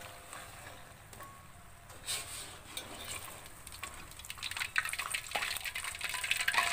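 Wonton-skin chips deep-frying in hot oil in a wok: a light sizzle and crackle that grows busier and louder through the second half, as the golden, cooked chips are lifted out with a perforated skimmer, with a few clicks of the metal spatula and skimmer against the wok.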